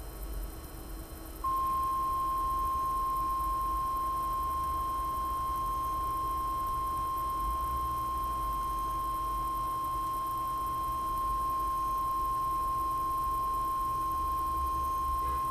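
Kudo3D Titan 1 resin printer's Z-axis stepper motor whining as it lowers the build plate into the resin vat: one steady high tone that starts abruptly about a second and a half in and holds unchanged.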